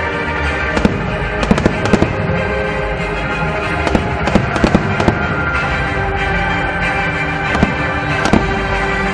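Aerial fireworks bursting in scattered sharp bangs, several in quick succession at times, over steady music playing throughout.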